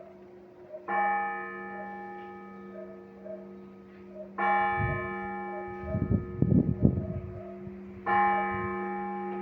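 Large Orthodox church bell struck slowly three times, about every three and a half seconds, each stroke ringing on over a steady low hum. Between the second and third strokes there are a few seconds of loud, low rumbling noise.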